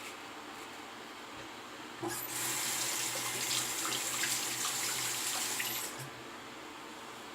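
Sink tap running for about four seconds: it is turned on about two seconds in and shut off near the end, a steady rush of water with a low hum underneath.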